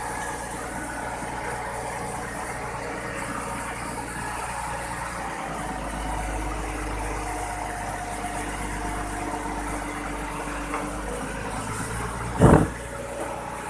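Concrete mixer truck's diesel engine running steadily, its low rumble getting heavier about five seconds in. A single loud knock near the end.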